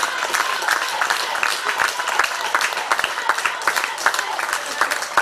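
Small crowd of spectators clapping, with scattered voices, applauding a goal just scored.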